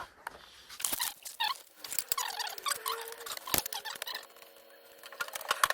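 Scattered sharp clicks and clinks, with light rustling and short squeaks, as car suspension parts and tools are handled.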